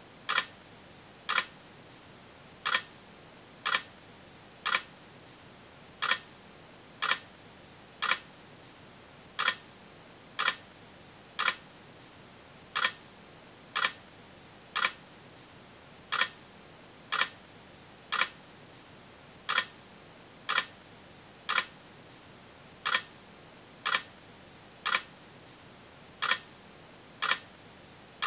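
Short, sharp clicks about one a second, falling into groups of three with a slightly longer pause between groups, over a steady faint hiss.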